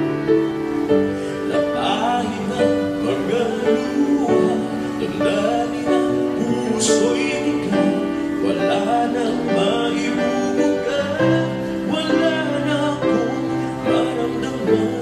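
A man singing a Filipino ballad in Tagalog into a handheld microphone over instrumental accompaniment.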